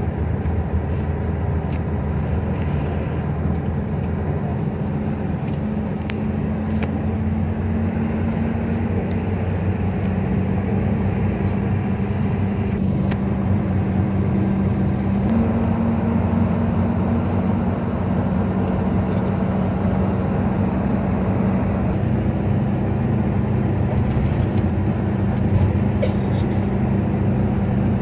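Steady low drone of a bus's engine and tyres on the road, heard from inside the passenger cabin; the engine note steps up slightly about halfway through.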